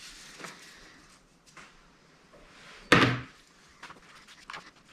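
A rag rubbing over a chainsaw fuel tank, then one sharp knock about three seconds in as the tank is set down on the workbench.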